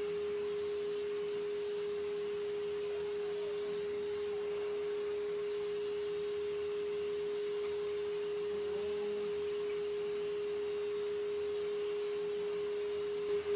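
A single steady pure tone at a mid pitch, unchanging in pitch and level, over a faint hiss.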